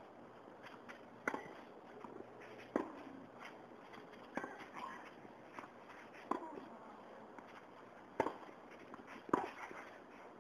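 Tennis rally: a ball struck back and forth with rackets, sharp pops about every one and a half to two seconds, with lighter ticks of the ball bouncing and shoes on the hard court between them.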